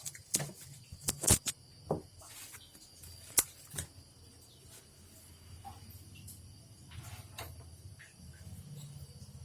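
A few short, sharp clicks and knocks in the first few seconds, such as objects being handled and set down, then a faint low steady hum.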